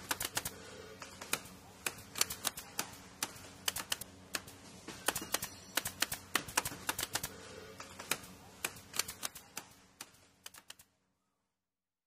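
Typing sound effect laid under text appearing on screen: rapid, irregular key clicks over a faint steady hum. The clicks stop about eleven seconds in.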